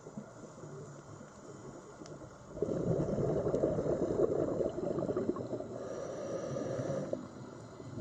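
Underwater ambience with a burst of bubbling and gurgling starting about a third of the way in and lasting about four and a half seconds, then cutting off, over a steady low hiss.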